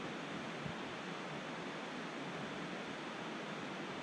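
Steady rush of a river's flowing water, an even hiss without a break.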